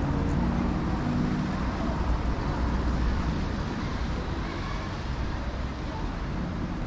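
Street traffic: passing cars give a steady wash of engine and tyre noise, with a low engine drone in the first few seconds that fades away.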